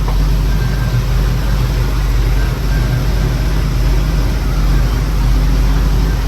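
Cammed Chevrolet 305 small-block V8 in a G-body Pontiac Grand Prix, idling steadily after a cold start and warm-up, running well.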